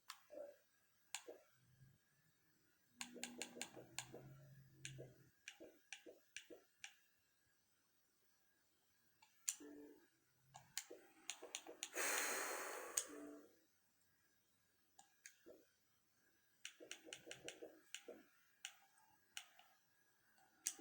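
Faint, scattered clicks of a computer mouse and keyboard, often in quick runs of several, with a brief rush of noise about twelve seconds in.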